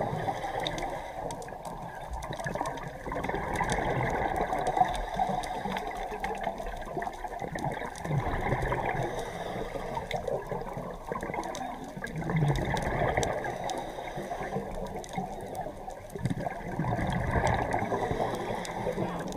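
Scuba regulator breathing heard underwater: exhaled bubbles rushing and gurgling past the microphone, swelling and fading about every four seconds.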